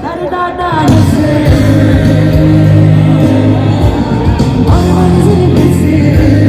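Live band music with a singer, loud and amplified, over heavy sustained bass notes. The music drops briefly at the start and the full band is back in about a second in.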